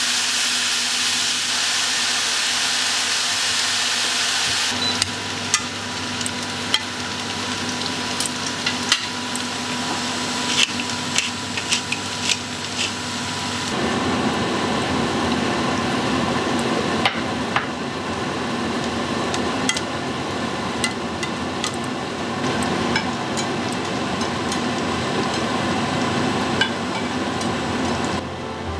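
Enoki and beech mushrooms sizzling in a frying pan, a steady hiss at first. From about five seconds in, wooden chopsticks tapping and scraping the pan as the mushrooms are tossed, many sharp clicks over the frying, which thickens into a fuller sizzle about halfway through.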